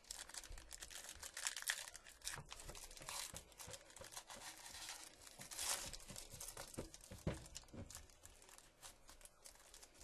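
Foil baseball-card pack wrapper being torn open and crinkled by hand: a run of irregular crackles and rips that thins out near the end.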